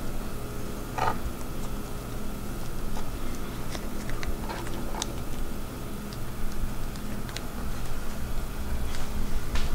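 Scattered soft clicks and crackles as hands fold and roll a soaked rice-paper wrapper around its fillings on a wooden cutting board, over a steady low hum.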